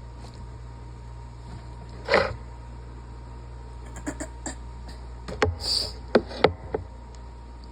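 A person with a cold in a sneezing fit: one sneeze about two seconds in, then a cluster of short, sharp sounds and breaths in the second half.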